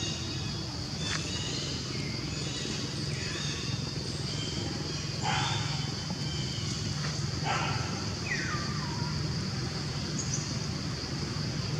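Forest ambience: a steady high insect drone, with about five short animal calls that each fall in pitch.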